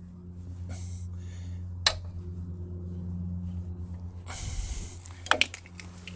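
Hand tools being handled while working on a bike's bolt: a sharp click about two seconds in, a short rustle past the middle, then two quick metallic clicks, over a steady low electrical hum.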